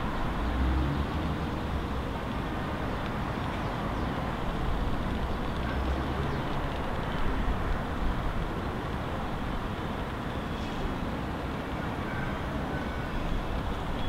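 Steady distant city road traffic: a continuous low rumble of cars with no single vehicle standing out.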